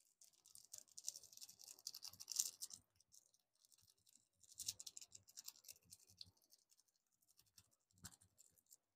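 Faint crinkling and rustling of a small plastic spice packet as it is handled and sprinkled over food. The sound comes in two stretches, with a single click near the end.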